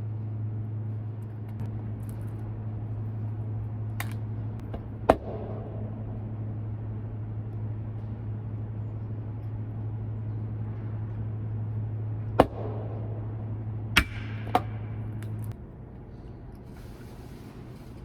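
A steady low mechanical hum that cuts off suddenly about three seconds before the end, with several sharp clicks or knocks over it, two of them close together near the end.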